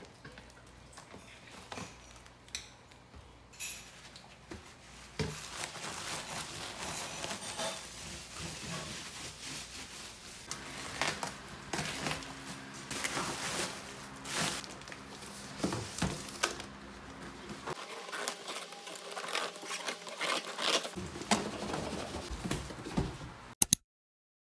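Plastic bubble wrap crinkling and rustling while scissors cut through it and the packing tape around a cardboard box, with many small irregular snips and crackles. It starts softly, builds a few seconds in, and stops abruptly near the end.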